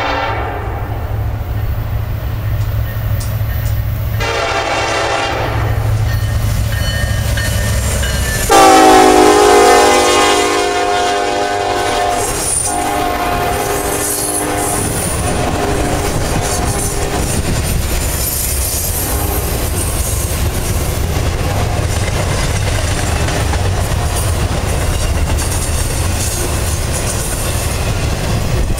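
Freight locomotive air horn sounding as the train approaches: short blasts near the start and about four seconds in, then one loud, long blast about eight seconds in that fades out a few seconds later. After the horn, an intermodal freight train rolls past with a steady rumble and clatter of wheels on rail.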